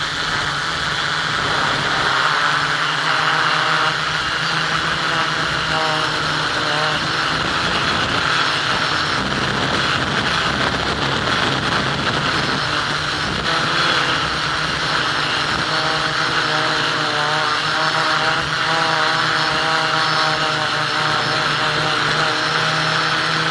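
FPV drone's electric motors and propellers whining, heard through the onboard camera, the pitch drifting up and down with the throttle over a steady rush of air.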